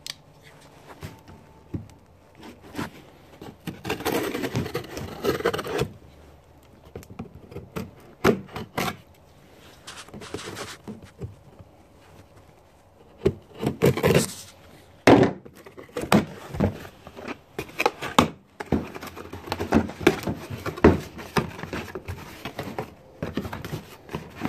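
A cardboard shipping box being cut open with a knife and its flaps pulled back: scraping and rubbing of blade and cardboard, with irregular knocks and thumps.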